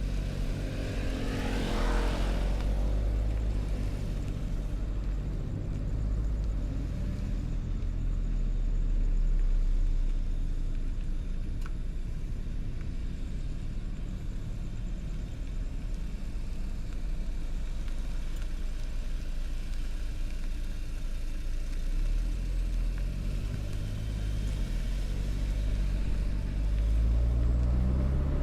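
A car engine running with a steady low rumble. About a second in, a tone climbs quickly in pitch, as in a short rev.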